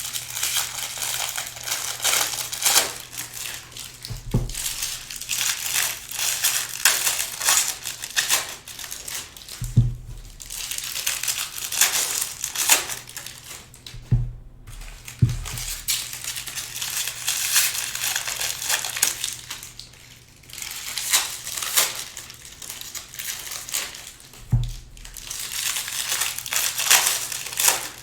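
Trading-card pack wrappers crinkling and tearing as packs are ripped open and the cards handled, with a few soft low knocks.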